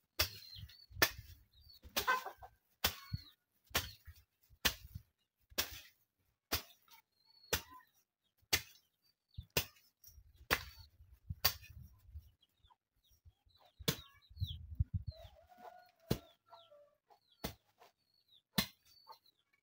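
Long-handled garden hoe chopping into soil and weeds, one sharp strike about every second, with a pause shortly before the end. Faint bird calls come in between the strikes.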